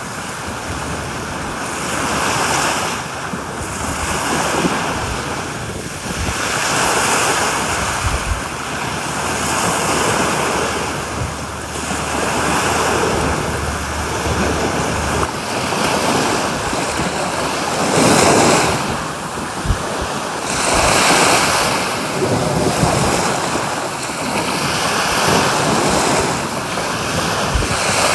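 Sea waves breaking and washing on a beach, the surf swelling and ebbing every few seconds, with wind buffeting the microphone.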